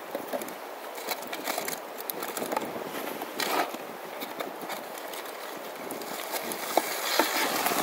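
Steady rushing noise with scattered crackles and clicks from a smoking campfire, as a foil packet is raked and lifted out of the coals with a stick and gloved hand; a few louder knocks near the end.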